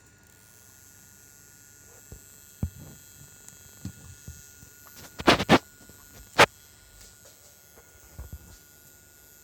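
The small cooling fan in a DJI Phantom 3 Professional's gimbal running with a steady high whine, a strange noise that the owner takes for a faulty fan after only a few hours of flight. Irregular sharp clicks and knocks sound over it, the loudest a quick run of three about five seconds in and another a second later.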